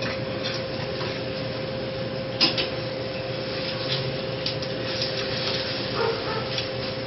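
A metal fork clinks against a plate a few times, one sharp clink about two and a half seconds in, over a steady background hum.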